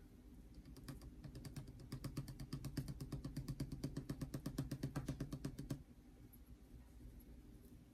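Loose glitter being shaken from its container onto wet glue: a faint, fast, even run of small rattling clicks, about six a second, that stops after about five seconds.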